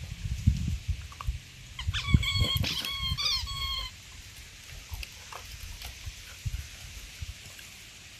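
Pit bull puppies squealing and yelping while they play-fight, a run of short, high cries about two to four seconds in. There is low rumbling in the first half, and it is quieter after that.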